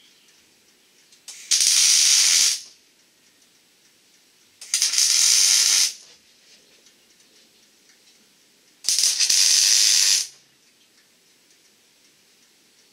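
Electric arc welder laying three tack welds on steel legs. Each tack is a hiss about a second long, starting and stopping sharply, about three seconds apart.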